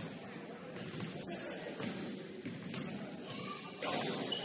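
Basketball game sounds in a gym: two sharp knocks about a second in, with high squeaks alongside, over a low murmur in the hall.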